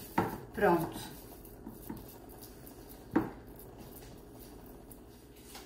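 Hands mixing and pressing raw ground beef in a glass bowl, with small knocks of hands and bowl against the glass and one sharper clink about three seconds in.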